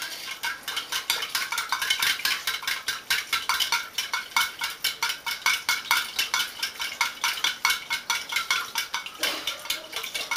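Ice cubes rattling against the inside of a stainless steel cocktail shaker as it is shaken steadily, a quick run of about five clinks a second.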